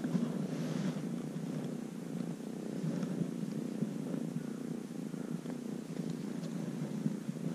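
Ginger-and-white kitten purring steadily while being stroked, the purr close to the microphone.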